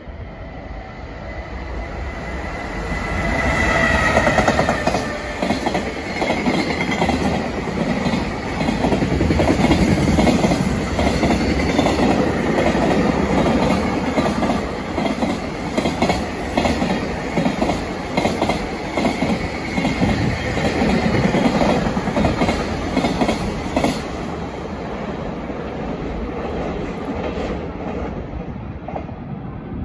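JR Freight container train hauled by an EF210 electric locomotive passing through at speed, its wheels clacking rhythmically over the rail joints. About 24 seconds in the last wagons go by and the sound falls away.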